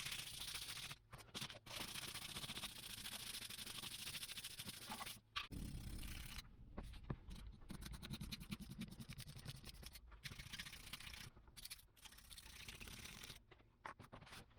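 Steady rough hiss of abrasive work on an old screwdriver, broken off by several short gaps.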